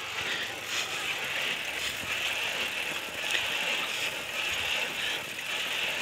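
Handmade metal cart on bicycle-type wheels rolling along a paved path: a steady hiss from the tyres, with a few faint ticks and rattles from the wheels and frame.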